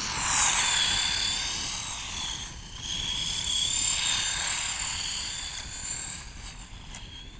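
Electric motor and gears of a 1/18-scale RC buggy whining at speed as it drives, the pitch wavering up and down with throttle. It is loudest about half a second in and again around four seconds in, then fades toward the end.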